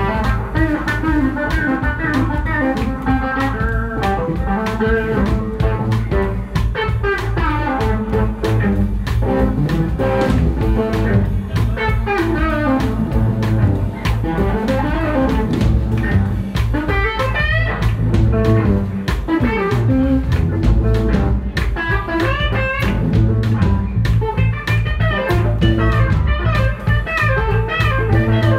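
Live blues band playing an instrumental: electric guitar lead lines full of bent notes over electric bass and a drum kit.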